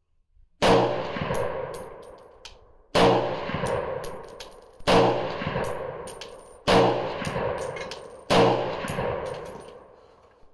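Five shots from a Springfield Armory M1A Tanker semi-automatic rifle in 7.62x51 (.308), spaced about two seconds apart, each with a long echoing decay. A few short high clinks follow each shot.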